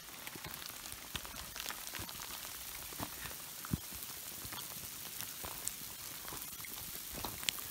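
Sleet falling: a steady hiss dotted with irregular small ticks.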